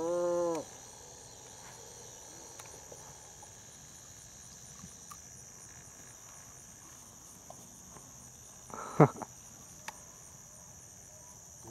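Steady, high-pitched insect chorus. A brief pitched call that rises and falls comes at the very start, and a single sharp, loud sound comes about nine seconds in.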